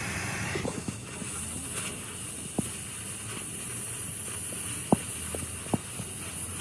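A steady high-pitched hiss that starts about a second in, with four sharp knocks or taps scattered through the second half.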